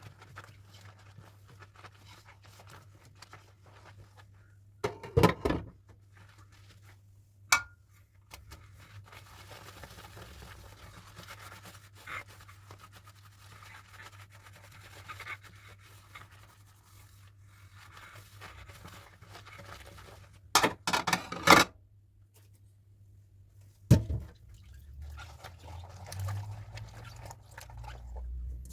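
Dishes being washed by hand: soft scrubbing and scraping, broken by a few sharp clinks and knocks of dishes being handled and set down.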